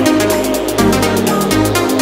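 Electronic dance music with a fast, steady beat and a deep bass line.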